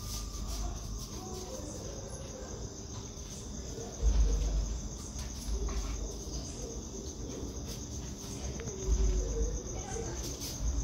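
Crickets chirping steadily, a high pulsing trill. Two low rumbling bumps come about four and about nine seconds in.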